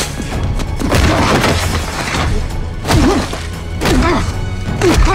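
Action-scene film soundtrack: music with a steady low drone, broken by about four heavy thuds and crashes, with short grunt-like sounds at some of the hits.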